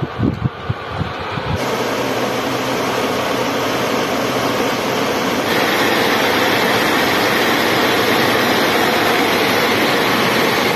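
Electric blower running: a steady rush of air over a low motor hum, louder and brighter about five and a half seconds in. A few handling knocks come before it, in the first second and a half.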